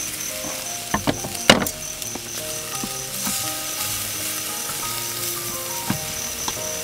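Meat sizzling on a charcoal tabletop grill, with a few sharp clicks about a second in, the loudest just after, under background music.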